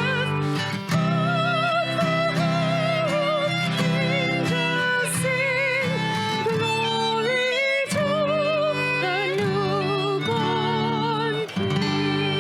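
Worship music from a small band: strummed acoustic guitar chords under a slow melody of long held notes sung or played with vibrato.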